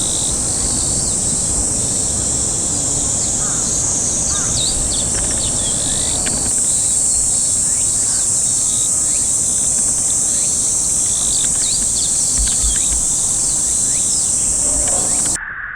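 A steady, loud, high-pitched insect chorus, with scattered short chirps of small songbirds over it. Near the end the chorus cuts off abruptly.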